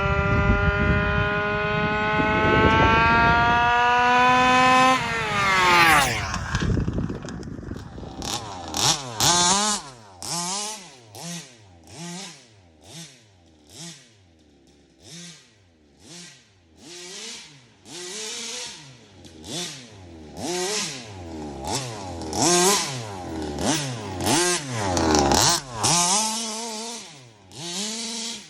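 Small two-stroke engine of a gas-powered RC car, held at high revs for about five seconds with its pitch slowly climbing, then dropping off. For the rest it is revved in short throttle blips, each rising and falling back, roughly one every second and a bit.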